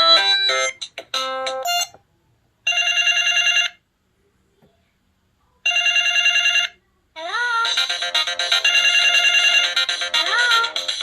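Synthesized MMF ringtones played on a Samsung SGH-X497 phone: one tune ends, then two one-second bursts of a fast warbling ring about three seconds apart, then a busier melody with sliding notes starts about seven seconds in.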